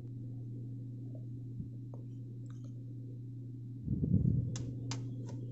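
Steady low electrical hum in a small room. Near the end come a brief rustle and bump, then three short light clicks of small hard objects being handled.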